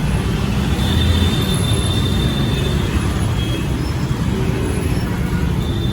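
Busy street traffic: a steady rumble of vehicle engines running close by.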